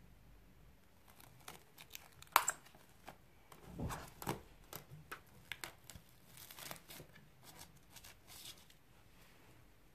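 Plastic cling film crackling and snapping as it is torn from the roll and pressed down around the rim of a glass bowl. The noise comes in irregular crinkles and clicks, the sharpest snap about two and a half seconds in.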